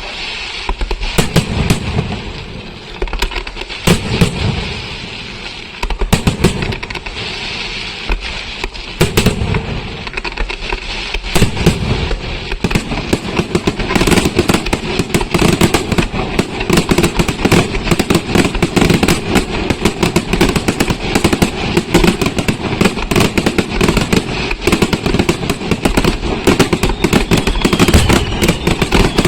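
Aerial fireworks display: heavy shell bursts a second or two apart with crackling between them, then from about twelve seconds in a dense, continuous barrage of rapid bangs.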